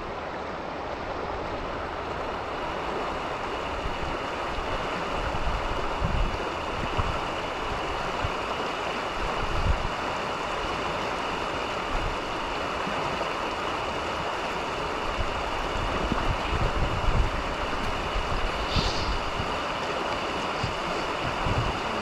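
Creek water rushing steadily, with irregular low thumps of wind buffeting the microphone.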